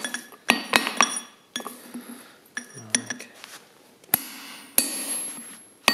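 Hand hammer striking hot steel on an anvil, several irregular blows, each with a short high ring, as a punched slug is worked loose from its hole.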